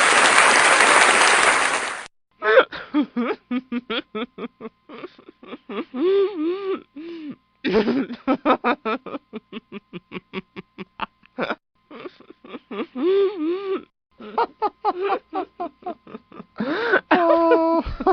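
Audience laughter and applause that cuts off abruptly about two seconds in. It is followed by a single person laughing in rapid, high-pitched bursts, in several fits with short pauses between them.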